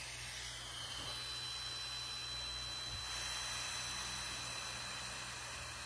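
A person blowing one long, steady breath through the mouthpiece of a handheld breathalyzer to give a breath sample for a blood-alcohol reading: a continuous airy hiss.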